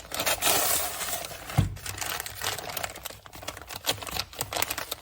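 Tool packaging being opened and handled by hand: rustling and tearing for about the first second and a half, a single dull thump, then a rapid run of small clicks and rattles.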